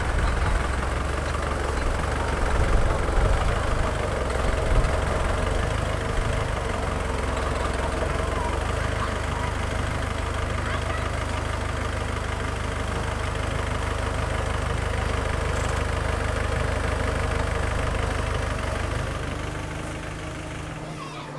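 Volkswagen bus engine running at a steady idle, a low rumble that fades away over the last couple of seconds.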